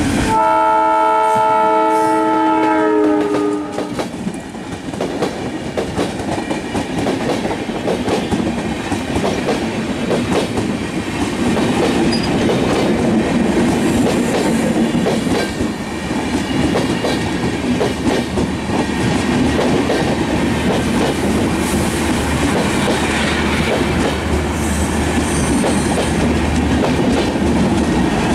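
Alco diesel locomotive of a broad-gauge express train sounding its horn for about three seconds as it passes, the pitch dropping at the end. The coaches then roll past close by with a steady, rhythmic clickety-clack of wheels over the rail joints.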